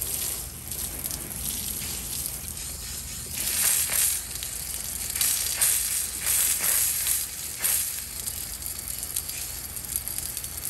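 Garden-hose water spraying and splattering onto a heat pump's hot compressor and condenser coil: a steady hiss that swells louder several times in the middle. The water is cooling the compressor, which is out on its internal thermal overload, so the overload can close.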